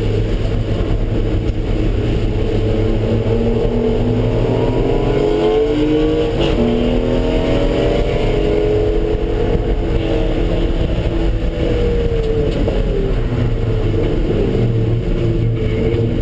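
Car engine being driven hard around a wet race track, its pitch rising and falling several times as it accelerates and slows, over a loud steady rumble of road and tyre noise.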